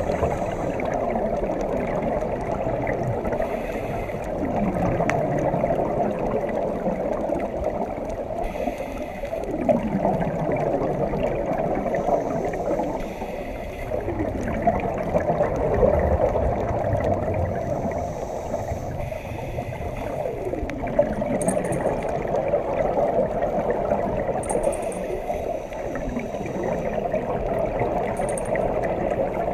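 Underwater ambience: a steady rushing, gurgling water noise, with a scuba diver's regulator breathing every four or five seconds, a short hiss of inhalation and a gurgle of exhaled bubbles.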